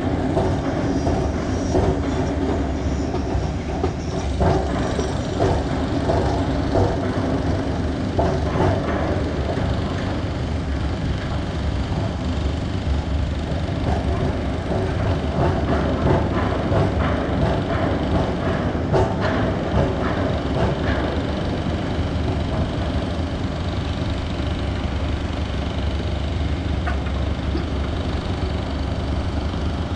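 Motor vehicle engine running steadily with a continuous low rumble of travel, heard from on board, with small rattles over it.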